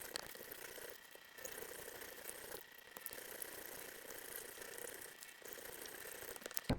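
Weston No. 32 meat grinder running through the coarse grinding plate, a steady mechanical noise with scattered clicks and a faint high whine. The owner says the new blades need honing and have not yet worn in against the plate.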